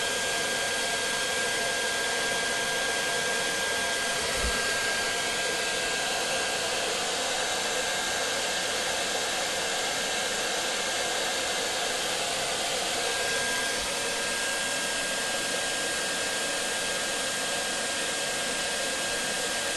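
Hair dryer running steadily, an even rushing blow of air with a thin steady whine over it.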